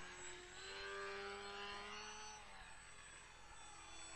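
Motor and propeller of a 3D foam RC model airplane running as it flies overhead. It is loudest in the first two seconds, then drops a little in pitch and fades somewhat.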